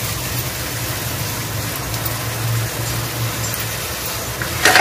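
Meat chops with crushed ginger and garlic sizzling steadily in hot oil in a steel pot, with a short knock of a wooden spatula against the pot near the end.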